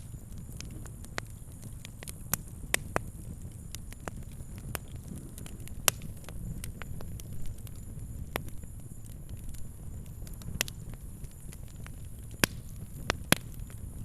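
Fire crackling: irregular sharp pops, a handful of them loud, over a steady low rumble of the flames.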